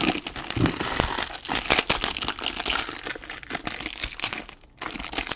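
Plastic wrapping of trading card packs crinkling as it is handled and torn open, with a brief lull near the end.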